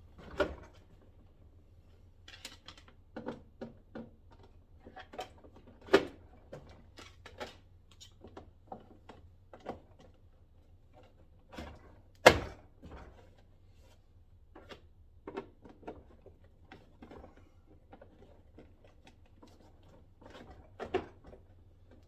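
Small plastic organizer bins being set back into a Milwaukee Packout toolbox drawer: a run of irregular plastic clicks and knocks, with two louder thunks about six and twelve seconds in.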